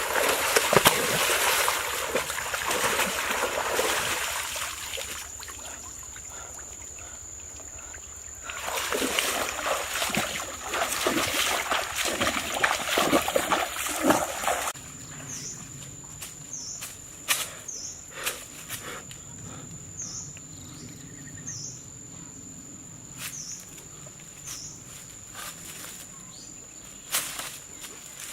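Water splashing and sloshing in two loud spells, broken up by knocks, then an abrupt change about halfway through to quieter outdoor sound with scattered clicks and short, repeated high chirps. A thin, steady high-pitched tone runs underneath throughout.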